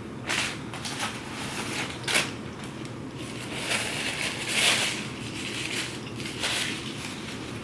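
Close-miked crunchy chewing of food, a run of irregular crackling crunches.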